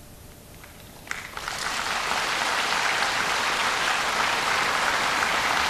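Audience applause begins about a second in, swells over the next second, then holds steady.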